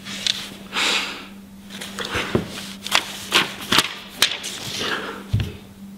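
Handling noise: a run of sharp clicks and a few short rustles, over a steady low hum.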